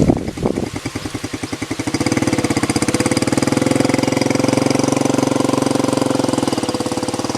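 A small engine running with a rapid, even pulse. It gets louder about two seconds in, then holds steady.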